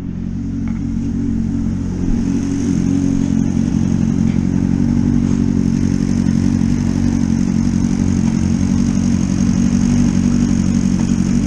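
Motorcycle engine idling steadily. It comes in after a cut and grows a little louder over the first two seconds.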